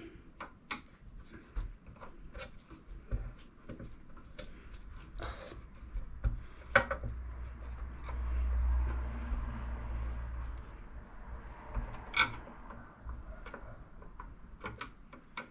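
Small clicks, taps and scrapes of a hand screwdriver and small parts as a screw is driven into a model car's engine bay frame, with sharper clicks about seven and twelve seconds in. A low rumble runs for a few seconds in the middle.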